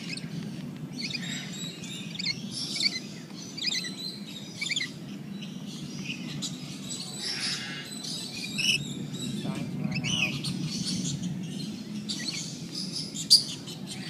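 Lories chirping and squeaking in many short, high calls, scattered and overlapping, over a steady low background hum.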